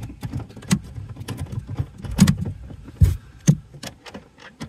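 Hand tool turning a car seat's mounting bolt at the floor rail: irregular metallic clicks and knocks, with heavier thumps about two and three seconds in.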